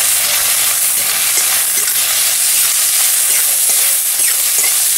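Chopped onion sizzling steadily in hot mustard oil in a kadhai, with a metal spatula scraping and stirring it now and then.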